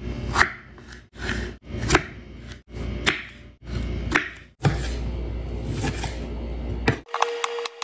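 Kitchen knife slicing through tomatoes on a wooden cutting board: each stroke is a short cutting sound ending in a knock of the blade on the board, in abrupt edited snippets about a second apart. Near the end it changes to quicker, lighter chopping taps over a steady hum.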